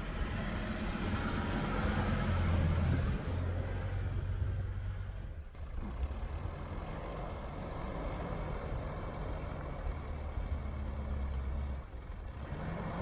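Mitsubishi Pajero 4's 3.2-litre diesel engine working under load as it drives through deep snow, its note swelling and easing. The sound changes abruptly about five and a half seconds in, then the engine carries on.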